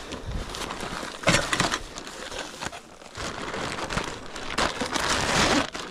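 Plastic packaging crinkling and rustling as swag parts are pulled out and unwrapped, in rough spurts, loudest about a second in and again near the end.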